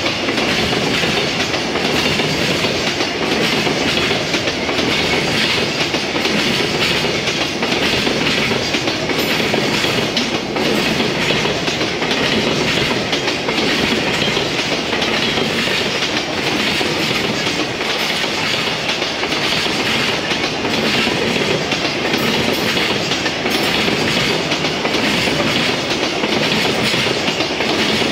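Container flat wagons of a JR Freight freight train rolling past at speed: steady wheel-on-rail rumble with repeated clacking as the wheels cross rail joints.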